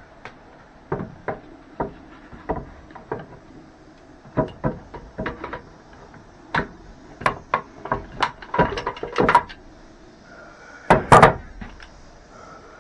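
Irregular wooden knocks and clacks as boards and a board clamp are handled and set in place, with a quick run of louder clacks about eleven seconds in.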